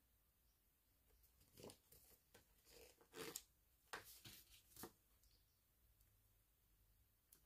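Faint paper rustling and crinkling from a paint-by-sticker sheet being handled, a handful of short rustles between about two and five seconds in.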